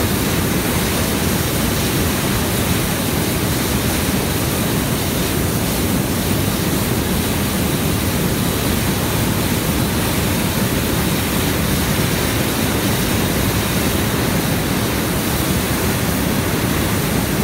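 Hot air balloon's propane burner firing in one long continuous burn: a loud, steady rushing noise.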